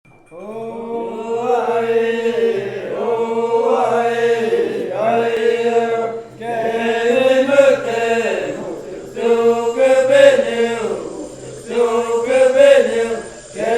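Maxakali vocal chant: phrases of about two to three seconds, each a held note that slides up and then falls away, separated by short breaths.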